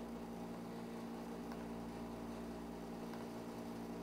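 Steady low electrical hum with faint hiss: the background noise of the recording setup between spoken instructions.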